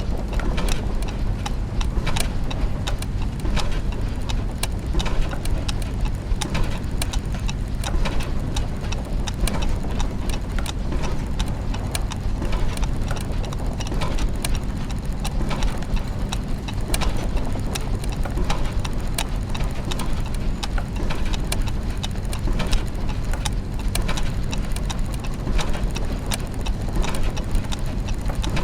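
Clockwork gears and mechanisms ticking and clicking, many overlapping clicks over a steady low machine hum.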